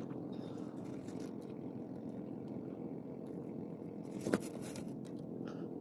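Steady low rumble, with a single sharp click a little over four seconds in.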